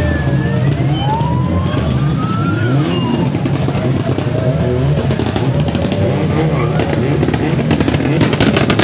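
Motorcycle and car engines running and revving in slow traffic. A siren wails, slowly rising and falling, over the first three seconds or so. A rapid run of sharp crackling pops comes near the end.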